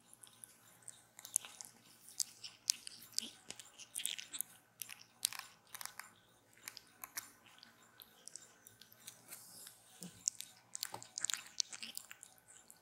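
Young kitten suckling milk from a nursing bottle's rubber teat: many quick, irregular mouth clicks at the nipple.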